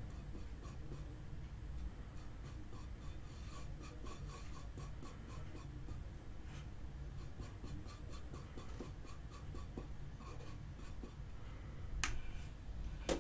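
A small paintbrush scratching and rubbing as it mixes paint in a stainless steel bowl, in faint, repeated strokes. Two sharp clicks come near the end.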